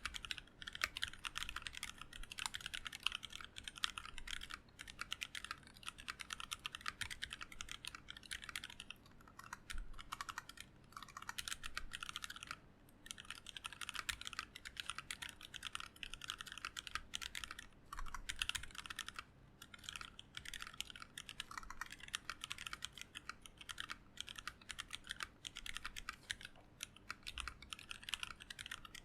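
Continuous fast typing on a custom mechanical keyboard with Seal 78 g linear switches, factory lubed, in a brass-plated hotswap board with ABS blank keycaps: a dense run of light clacky keystrokes with a few brief pauses between bursts.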